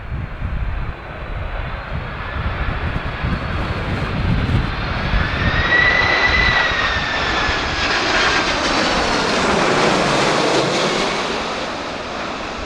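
Jet airliner's engines on landing approach, passing the runway edge: a high whine swells and bends down slightly, the broad jet roar peaks about ten seconds in, then fades away. Strong wind buffets the microphone with a low gusty rumble for most of the pass.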